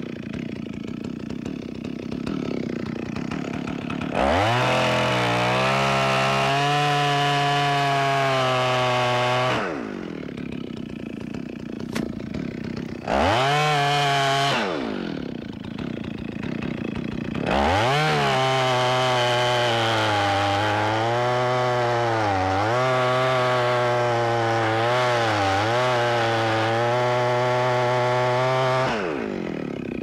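Chainsaw cutting the undercut in a standing tree. It idles, runs up to full throttle for about five seconds, drops back to idle, blips briefly, then runs at full throttle for about eleven seconds before dropping back to idle. During that long run its pitch sags twice as the chain loads in the wood.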